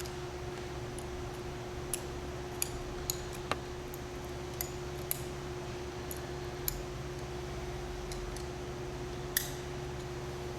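Scattered sharp metal clicks, about eight to ten of them, of a 7/16 box-end wrench on the hex-head machine bolts of a filler valve body's side cover as the bolts are loosened. A steady hum lies underneath.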